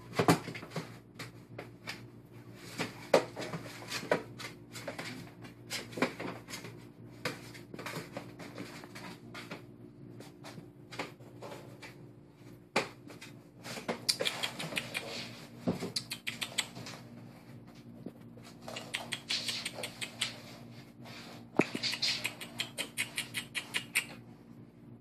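Three-week-old puppies crawling about in a plastic kiddie pool: irregular scratching, tapping and rustling of small paws and claws on the plastic and the blanket, in bursts, over a faint steady hum.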